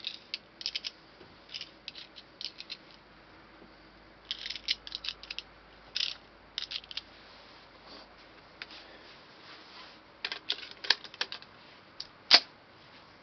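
7.62x25 Tokarev cartridges being pressed one by one into a pistol magazine: clusters of small metallic clicks. Near the end comes one sharp, louder metallic click as the carbine is handled.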